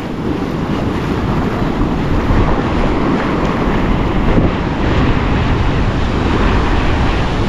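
Ocean surf washing over a shallow beach in a steady rush, with wind buffeting the microphone.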